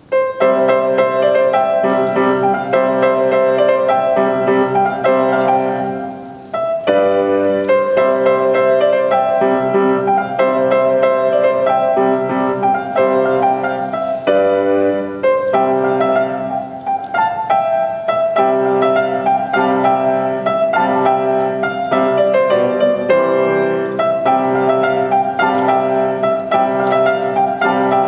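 Solo grand piano being played, the music starting abruptly right at the outset with a short softer moment about six seconds in.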